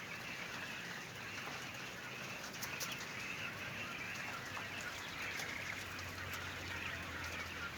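A shed full of caged laying quail: a steady dense rustle of birds moving and calling, with scattered sharp clicks and a few wing flutters. A steady low hum runs underneath.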